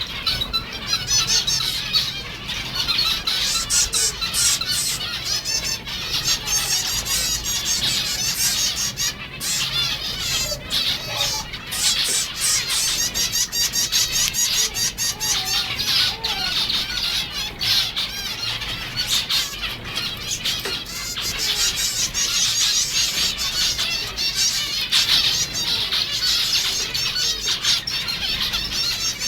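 A flock of zebra finches calling together: a dense, continuous chorus of short, high, overlapping chirps.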